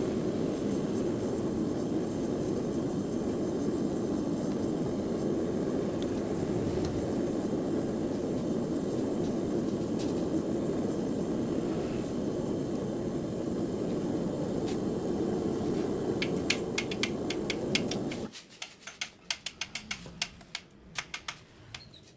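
Gas forge burner running with a steady rushing noise. The noise cuts off abruptly near the end, and a run of sharp metallic clicks and clinks comes in with it.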